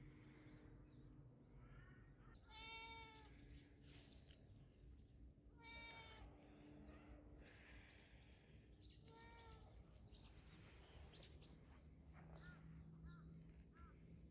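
Cat meowing three times, each call drawn out for about half a second, about three seconds apart.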